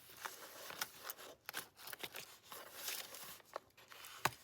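Paper pages of a handmade junk journal rustling and crinkling as they are handled and turned, a run of short crackles with a sharper click near the end.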